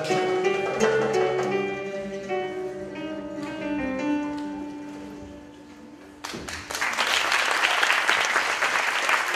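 A small live band led by acoustic guitars plays a piece to its end: plucked notes give way to a last held chord that fades out. About six seconds in, the audience breaks into applause.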